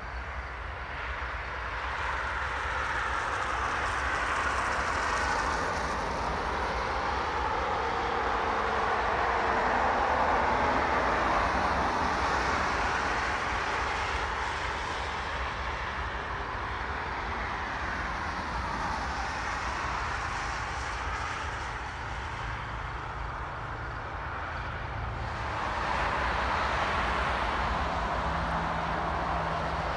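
Highway traffic passing alongside the tracks: cars and trucks going by one after another, their tyre noise swelling and fading as each passes. Near the end a low steady hum joins in from the approaching freight train's locomotives.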